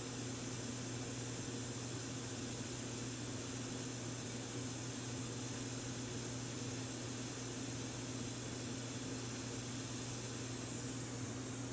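Steady hiss with a low hum underneath, unchanging throughout, with no distinct events.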